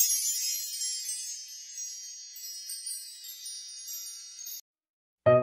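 Shimmering, high-pitched wind-chime sparkle sound effect for an animated logo intro: many high ringing tones that start bright and fade away over about four and a half seconds, then stop abruptly.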